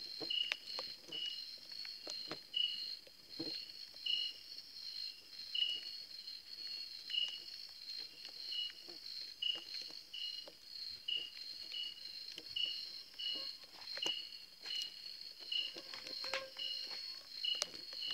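Night insects calling: a steady high trill with a lower chirp repeating a bit more than once a second, over scattered light clicks and taps.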